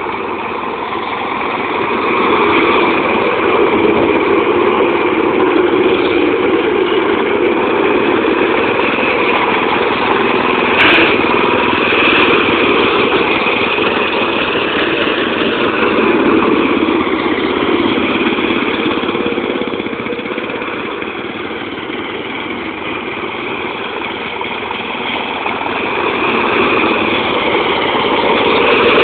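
Riding lawn mower engine running steadily, growing louder about two seconds in, easing off for a while and rising again near the end. A short click sounds about eleven seconds in.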